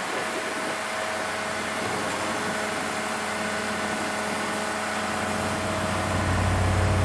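An engine running steadily, with a low rumble that swells and grows louder about six seconds in.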